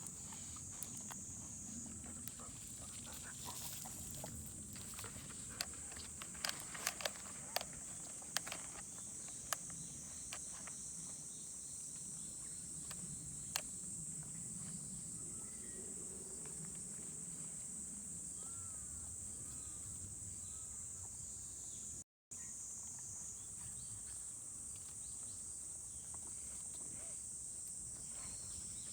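Steady high-pitched insect chorus, with a few scattered sharp clicks between about five and ten seconds in.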